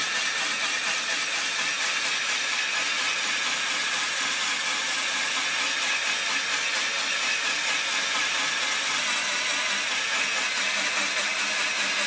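Cordless drill running steadily, spinning an adjustable rigid cylinder hone whose oiled stones grind against the bore of a hydraulic cylinder tube with an even hiss. The hone is worked in and out to true the bore after welding has distorted it out of round.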